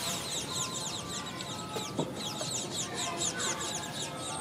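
Birds chirping outdoors: dense high, quick downward-sweeping chirps repeating several times a second, with fainter lower calls among them. A single sharp knock sounds about two seconds in.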